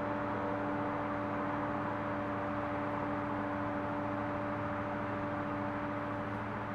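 Steady background hum and hiss, unchanging throughout, with no other sound events.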